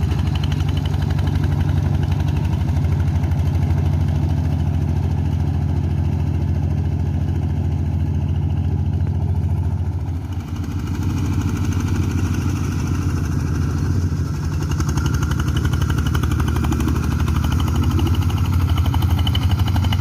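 Engine of a boat tractor (paddy-field plowing machine) running steadily. About halfway through the level dips briefly, and then the note changes and carries more higher-pitched noise.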